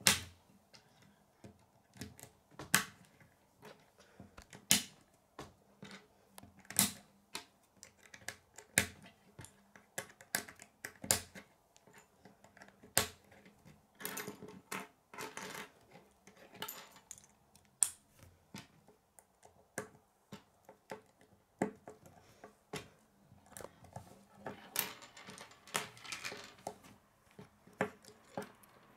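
K'nex plastic rods and connectors clicking as they are snapped together and knocked against a wooden tabletop, in scattered sharp clicks and taps, thicker in a couple of short flurries.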